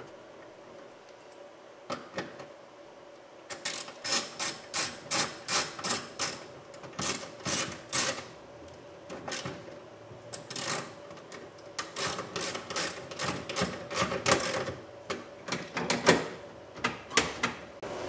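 Hand ratchet clicking as it runs a 10 mm bolt in, a few sharp clicks a second in quick runs, starting a few seconds in.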